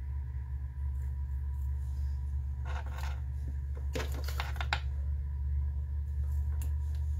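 A steady low hum, with a few small plastic clicks and rattles about three seconds in and a quick run of them around four to five seconds in, as makeup items are handled.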